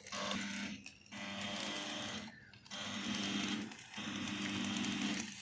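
Electric arc welding: the welder's arc buzzing with a steady hum and a crackling hiss, struck in four short runs of about a second each with brief breaks between them.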